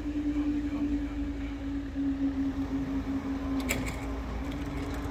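Level crossing barrier mechanism humming steadily as the barrier booms rise. A brief clank comes about three and a half seconds in.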